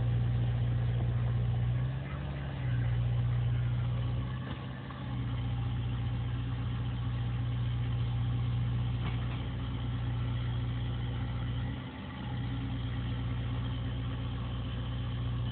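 CAT 305 mini excavator's diesel engine running steadily, its note dipping briefly three times.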